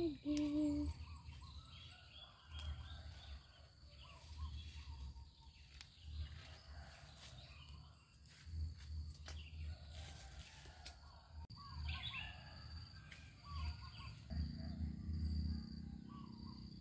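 Faint outdoor garden ambience: scattered bird chirps over a steady high insect hum, with irregular low rumbles on the microphone.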